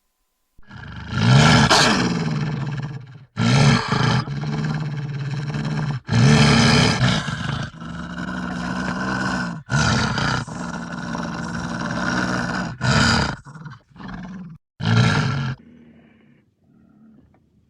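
A big cat roaring in a series: several long, deep roars, each two to three seconds, followed by shorter, quicker ones that trail off near the end.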